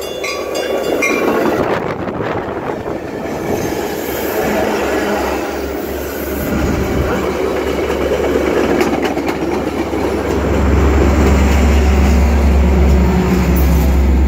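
Metra commuter train pulling into the station right alongside: a loud rumble of passenger cars and wheels rolling past on the rails. From about ten seconds in, a steady low drone of the diesel locomotive takes over as it passes.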